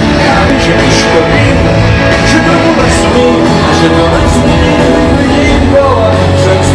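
Live rock band playing loudly, electric guitars and a singing voice, heard from among the audience.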